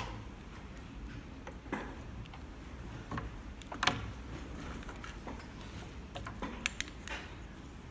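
A few light, scattered clicks and taps of hands handling pink wax record blocks and small instruments on a bench, with a low steady hum underneath; the sharpest tap comes about four seconds in and a quick cluster near the end.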